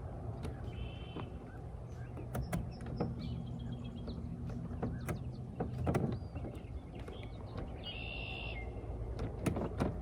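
A steady low hum with scattered sharp clicks and knocks, the loudest about six seconds in. Two short, high chirping calls, like a bird's, come about a second in and again near the end.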